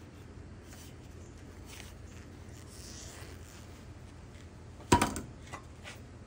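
A single loud metallic clunk with a brief ring, as a metal part or tool hits a hard surface about five seconds in, followed by two lighter knocks; before it, only faint handling noise over a low hum.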